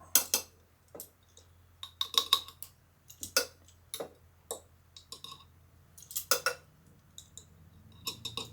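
A teaspoon scooping minced garlic out of a jar and tapping it into a crock pot: a string of light clinks and taps, roughly one a second, some in quick pairs.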